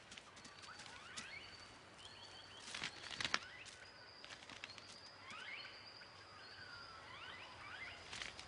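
Faint natural bush ambience: many short rising bird chirps over a thin steady high tone, with a brief cluster of sharp clicks and rustles about three seconds in.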